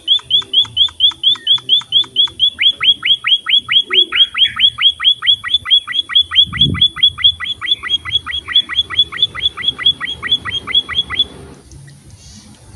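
A small finch of the kind sold as emprit (munia) calls in a fast, even series of short, downslurred chirps, about five a second, stopping about a second and a half before the end. There is one low thump partway through.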